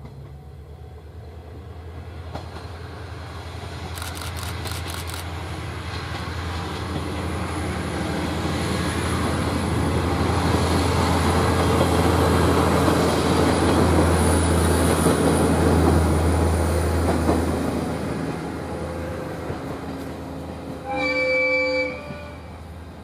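Aizu Railway's two-car diesel railcar train (AT-351 and AT-401) approaching and passing, a low engine drone and running noise growing louder to a peak a little past the middle, then fading as it moves away. A short horn blast sounds near the end.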